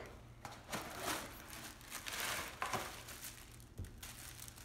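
Packing paper crinkling and rustling as a wrapped item is pulled from a wooden crate and unwrapped, with a few light knocks.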